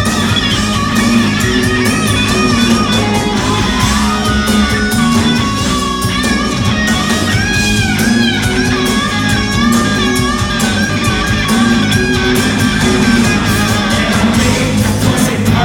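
Live rock band playing an instrumental passage: distorted electric guitar lead with bending notes over drums and bass guitar.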